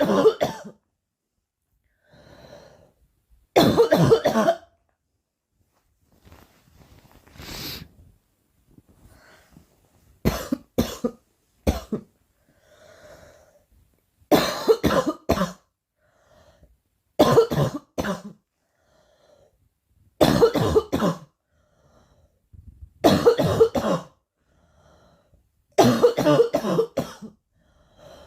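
A girl coughing in repeated fits of one to four coughs, a fit every few seconds, with faint breaths between.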